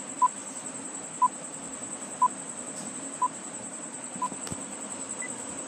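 Countdown timer sound effect: five short beeps at the same pitch, one each second, then a fainter, higher beep about five seconds in that marks the end of the count. A faint steady high-pitched whine and hiss run underneath.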